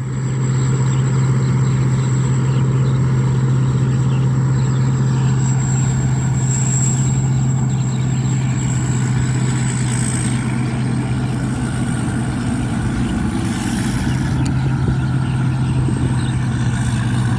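Thai-built rice combine harvester running steadily while harvesting, a continuous engine drone with a thin high whine riding above it.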